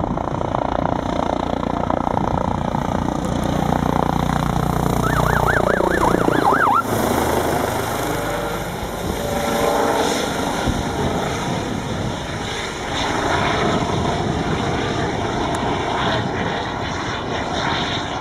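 Eurocopter EC135 police helicopter in flight, its main rotor beating steadily over the turbine whine. It is loudest in the first seven seconds, with the pitch falling as it passes around six seconds in, then goes on lighter as it moves off.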